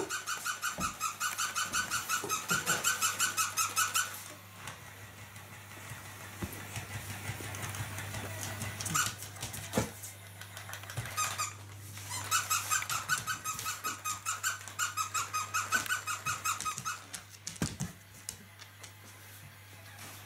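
Squeaker in a plush teddy-bear dog toy squeaking rapidly, about six times a second, as a labradoodle chomps on it. One run lasts about four seconds at the start and another about five seconds past the middle, with a few clicks in between.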